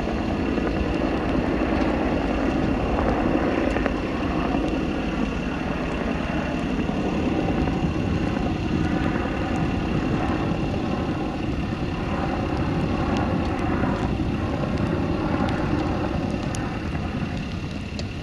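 Bell 205A-1 helicopter in flight: its main rotor and single Lycoming T53 turboshaft running steadily, with a steady high turbine whine over the rotor noise.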